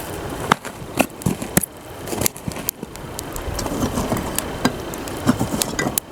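Wood campfire crackling, with sharp pops and snaps about twice a second over a low steady rumble.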